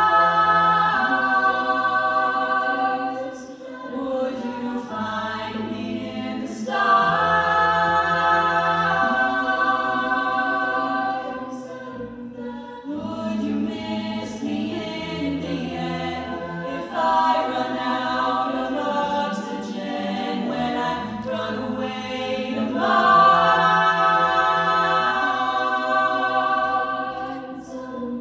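Mixed-voice collegiate a cappella group singing on stage: sustained multi-part chords over a stepping sung bass line, in swelling phrases that break off every few seconds, with a few sharp clicks here and there.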